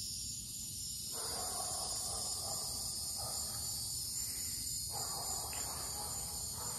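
Steady high-pitched insect chorus with no break, and a softer rushing sound underneath that comes in about a second in and drops out briefly near the middle.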